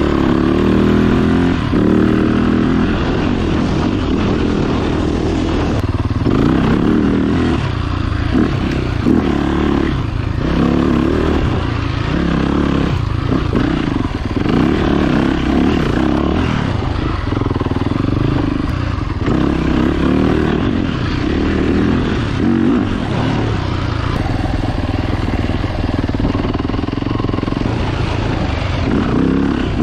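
Off-road dirt bike engine running hard on a trail, its pitch rising and falling again and again as the throttle is opened and closed.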